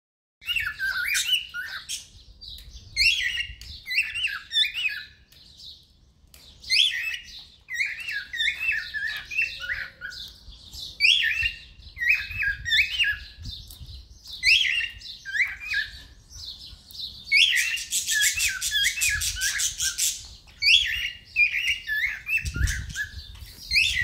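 Cockatiels chirping and whistling in short repeated phrases of rising and falling notes. A few seconds past the middle comes a harsh, rapid buzzy chatter.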